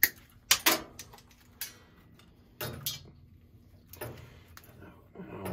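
Irregular sharp clicks and snaps, about half a dozen, the loudest at the start and about half a second in, from thermostat wiring, pliers and lever wire connectors being handled at a zone valve.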